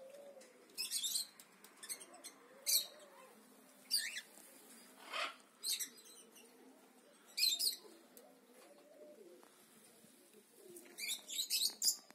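Cockatiel giving short, sharp chirps every second or so, with a quick run of chirps near the end. Pigeons coo low and steadily underneath.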